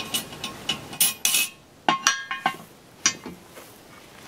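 Cast-iron Dutch oven lid being hooked and lifted off the pot with a metal lid lifter: a run of metal clinks and a short scrape, the loudest clink about two seconds in and ringing briefly.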